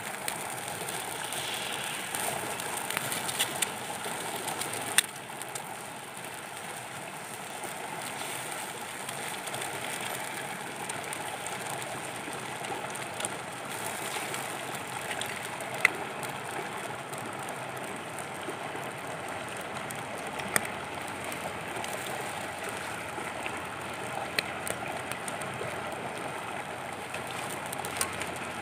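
Eggs, tomatoes and chillies sizzling on a flat stone heated over a small wood fire, a steady hiss, with the fire crackling and giving a few sharp pops.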